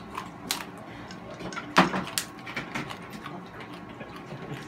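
Mouth noises of someone sucking and chewing a Warheads sour hard candy: a string of short sharp clicks, the loudest a little under two seconds in.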